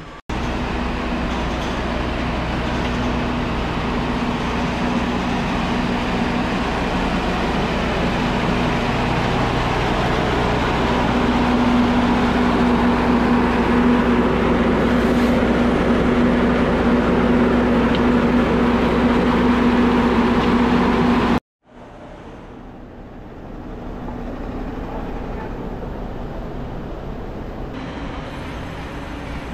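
A diesel locomotive engine running steadily with a held hum, a little louder about halfway through. The sound cuts off abruptly about three-quarters of the way in, giving way to a quieter steady rumble.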